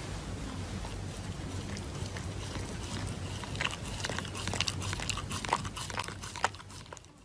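A Shiba Inu chewing and pawing at a paper face mask: soft crinkling and small clicks that get busier about three seconds in, over a steady low hum.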